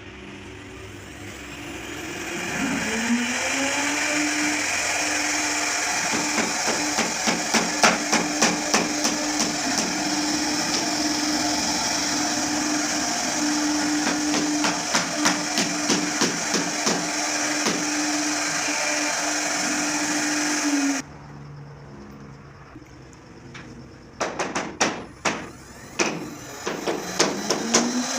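CNC machine running: its spindle spins up to a steady whine about two and a half seconds in, with runs of rapid clicking as it works. The whine cuts off abruptly about 21 seconds in, followed by more rapid clicking near the end.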